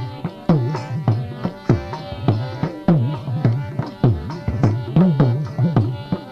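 Instrumental break in Gujarati devotional folk music. A dakla drum plays a brisk, steady rhythm whose low strokes bend in pitch after each hit, over held tones from an accompanying instrument.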